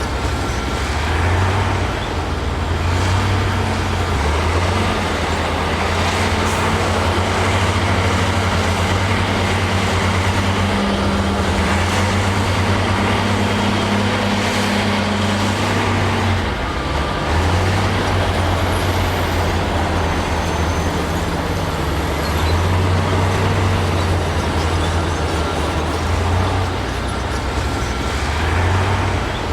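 Heavy diesel engine of a bulldozer working, its low engine note shifting up and down as the load changes, with a brief dip about sixteen seconds in.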